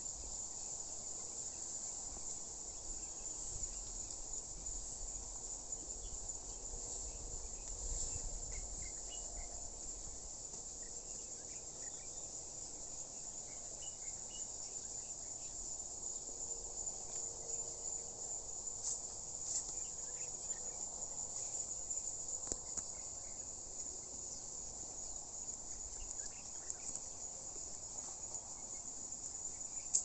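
Steady high-pitched insect chorus, buzzing without a break. There is a low rumble in the first ten seconds or so.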